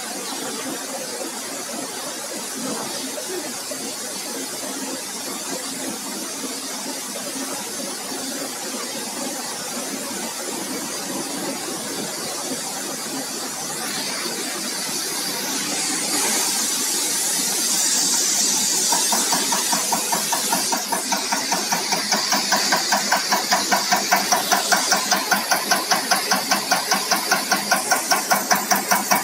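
Diesel injector test bench running an electronic unit injector test. A steady machine hum builds with a rising hiss about halfway through, and from about two-thirds in an even, rapid clicking of about five beats a second sets in as the cambox drives the unit injector.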